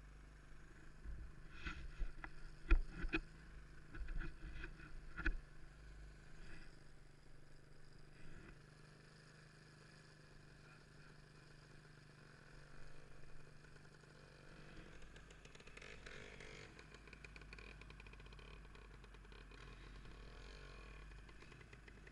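Faint motorcycle engine running, with a quick series of knocks and thumps in the first few seconds.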